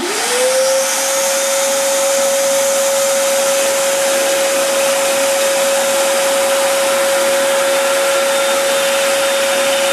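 Shop vac switching on as the dust collector for a scroll saw. Its motor whine rises quickly in pitch during the first second, then holds a steady high whine over a loud rush of air.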